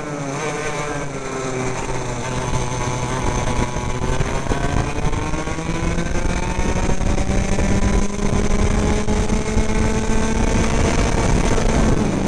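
Racing kart engine at full work on a lap: its note drops as the kart slows into a corner at the start, then rises steadily through most of the stretch as it accelerates, and falls again near the end as the driver lifts for the next bend.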